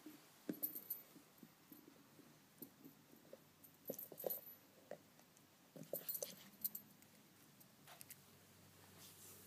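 A Corgi puppy playing with toys: faint scattered clicks, taps and jingly rattles, in small clusters a couple of seconds apart.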